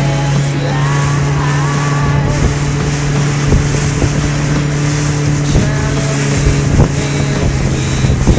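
Motorboat engine running at a steady speed with an even hum, under wind noise on the microphone and occasional low thumps.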